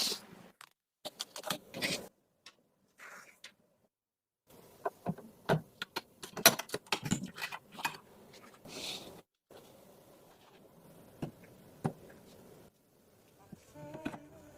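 Handling noises of computer parts being assembled: scattered sharp clicks, taps and light rattles, irregular and with short pauses, the busiest stretch about five to eight seconds in.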